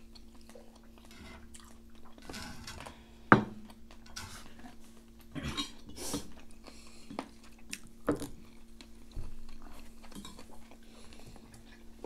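Eating at a table: chewing of Shin Ramyun noodles, with chopsticks clicking against the pan and dishes, one sharp clack about three seconds in being the loudest. A steady low hum runs underneath.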